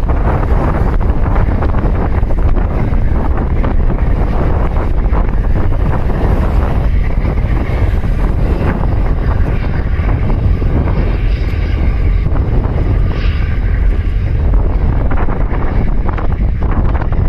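Strong wind buffeting the microphone: a loud, steady low rumble that covers everything else.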